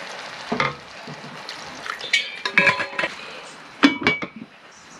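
Metal cooking pot and utensils clattering, with several ringing clanks, the loudest about two and a half and four seconds in, over a light sizzle of lamb frying in the pot.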